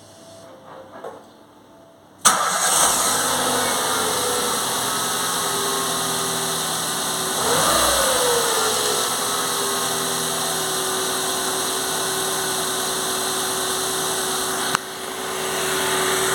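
Ford Fiesta engine started about two seconds in, then running steadily. A few seconds later it gives a brief rev whose pitch rises and falls, and it settles back to idle. It runs without the squeal it had before, its worn water pump now replaced. A sharp click comes near the end.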